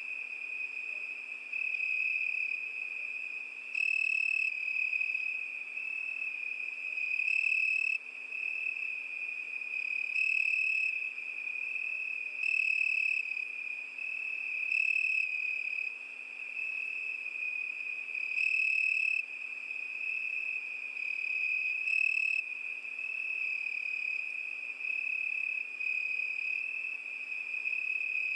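Crickets chirping: a steady, high trill that swells into louder stretches of about a second every few seconds.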